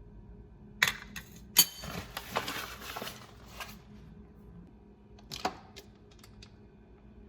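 Handling noise from small hard objects: a few sharp clicks, then a second or two of clattering, then another click.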